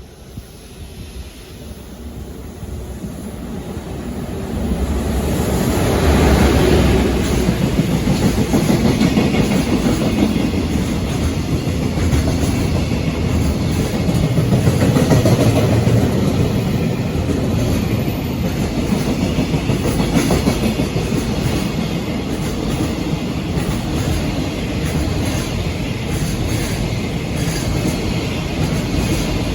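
JR Freight train approaching and running past: the sound builds over the first six seconds, then the wagons roll by steadily.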